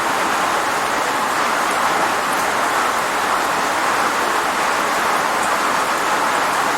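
Steady rain: a dense, even hiss of falling rain that runs unbroken, with no distinct drops or thunder standing out.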